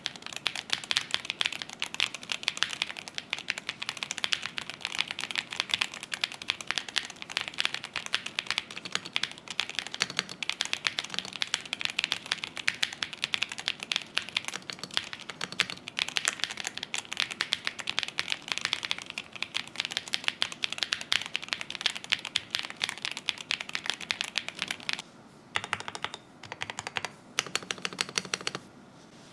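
Rapid typing on a mechanical keyboard with Gateron CM linear switches, a fast stream of keystroke clacks. Near the end the typing breaks off briefly and resumes on Gateron Unicorn linear switches.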